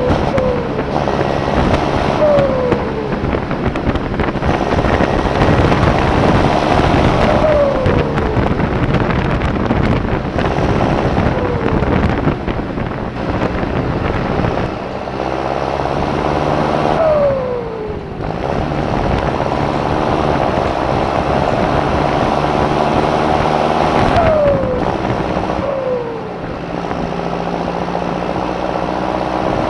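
John Deere 6420 S tractor's turbo-diesel engine running loud, with the turbocharger's whistle sliding down in pitch about eight times as the revs fall back.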